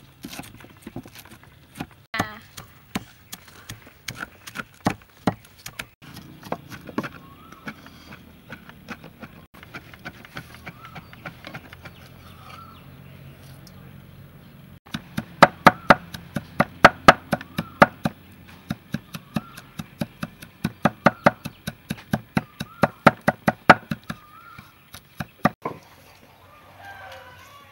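Cleaver chopping red chilies on a thick wooden board: a run of sharp knocks, scattered at first, then fast runs of several chops a second in the second half. Chickens cluck faintly in the background.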